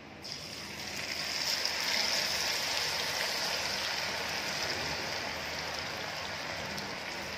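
Marinated chicken pieces deep-frying in a kadhai of hot oil, the oil sizzling and bubbling steadily. The sizzle starts just as the first pieces go in and builds over the first couple of seconds as more are added, then holds.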